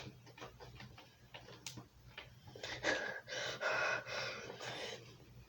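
A sheet of paper rustling and crinkling as it is folded and creased, with short crackles and ticks, then a denser stretch of rustling for the last couple of seconds.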